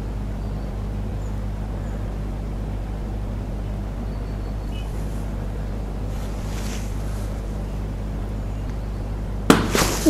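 A steady low hum made of several even low tones, with a few faint, short high chirps. Near the end it is cut across by a sudden loud crackle.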